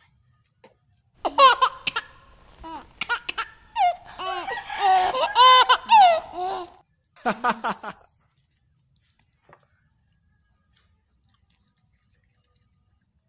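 A young girl laughing and giggling in several high-pitched bursts, starting about a second in and stopping about eight seconds in.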